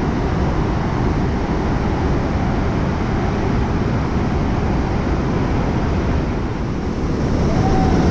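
The Rhine Falls, a large river waterfall, rushing in a steady heavy noise of falling water, which grows louder near the end.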